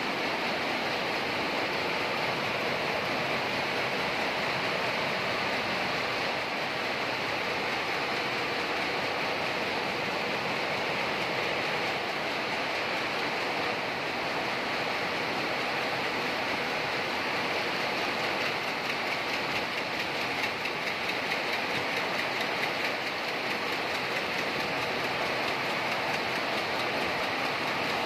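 Many Sulzer Rüti weaving looms running together in a weaving shed: a loud, steady, dense mechanical clatter with no let-up.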